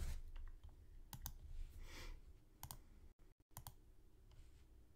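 Faint clicks of a computer mouse: one sharp click at the start, then a few more, several in quick pairs.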